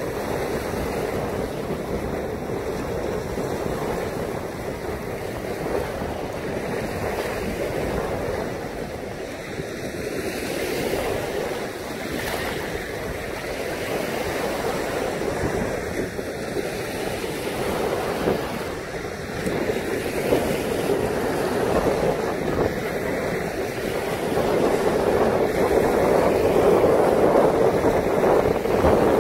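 Lake Michigan surf breaking on the shore in a steady wash, with wind buffeting the microphone; it swells louder near the end.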